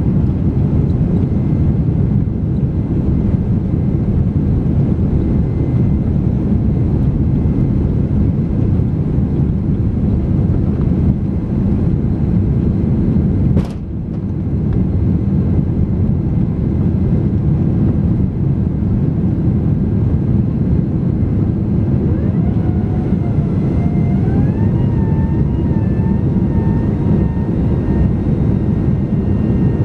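Cabin noise of a Boeing 767-300 on its takeoff roll and climb-out, heard from a window seat over the wing: a steady, loud roar of the engines at takeoff power. A single sharp click comes about halfway through, and in the last several seconds a whine rises in pitch in steps and then holds steady over the roar.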